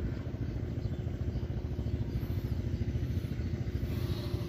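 A small engine running steadily, a low even drone with no change in speed.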